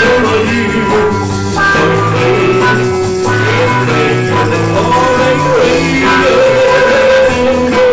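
A rock band playing live: a moving bass line under sustained melody notes, with no clear words sung.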